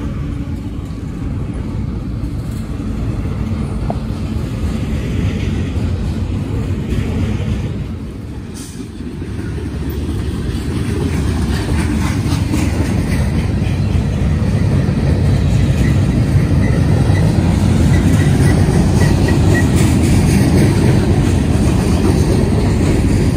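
Freight train cars rolling past, double-stack container cars and covered hoppers: a steady rumble and rattle of steel wheels on rail. It dips briefly about eight seconds in, then grows louder toward the end.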